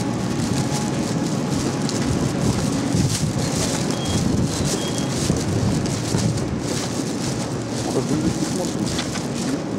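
Steady hiss and hum right beside an electric train standing at a station platform, its underfloor equipment and fans running.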